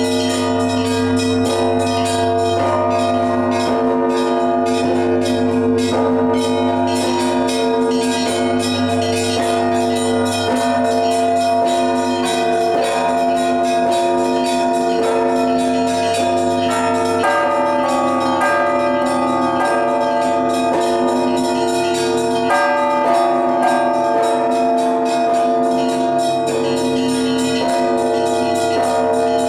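Russian Orthodox church bells ringing a full peal: many smaller bells are struck in a fast, dense pattern over the long hum of larger bells. The pattern of the higher bells changes a few times during the peal.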